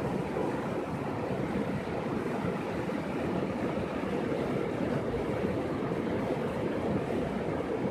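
Shallow, rocky mountain river rushing over stones: a steady, even rush of flowing water.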